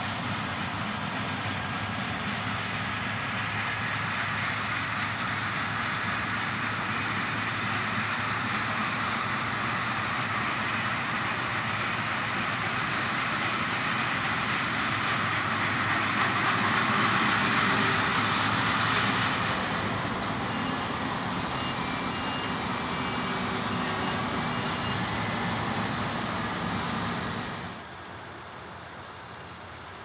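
Claas Lexion 770TT TerraTrac combine harvester running and threshing wheat as it drives toward the listener, a steady mechanical noise with an engine hum that grows loudest about two-thirds of the way in. Near the end it drops suddenly to a quieter steady engine sound.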